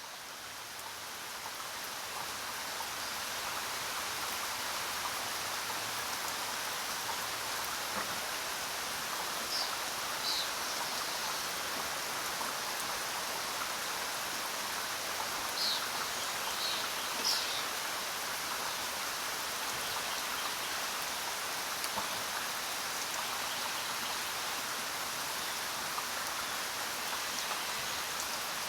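Steady jungle rain, a dense even hiss that swells up over the first few seconds, with a few short high bird chirps around the middle.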